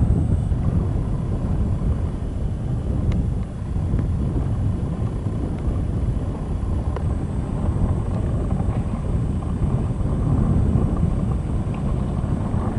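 Steady low rumble of wind buffeting the microphone, with a couple of faint ticks.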